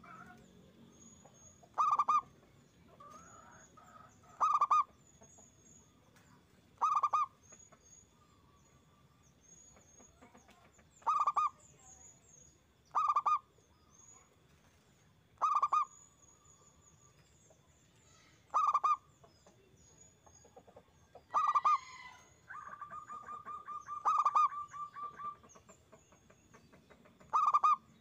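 Zebra dove (perkutut) cooing loudly: about ten short coos a couple of seconds apart, with a rapid stuttering run of notes about two-thirds of the way through.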